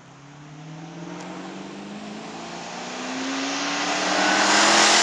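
Fox-body Ford Mustang's V8 engine pulling under acceleration. It grows steadily louder, with its pitch rising slowly.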